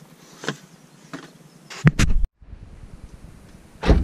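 Handling noise from hands working a hand tool and interior parts: a few sharp clicks and knocks, the sound cutting out briefly just past halfway, then a louder knock near the end.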